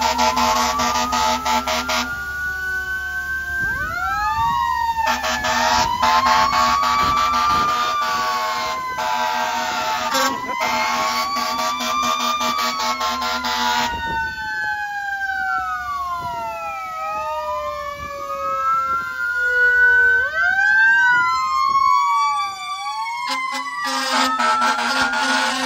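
Several fire engine sirens wailing at once, their rising and falling pitches overlapping. Long blasts of air horns sound over them, stopping about two seconds in, returning for several seconds, and sounding again near the end.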